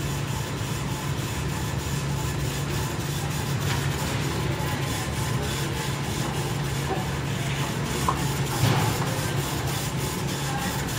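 Airbus A330-200's jet engines running at idle, a steady low hum with a faint hiss.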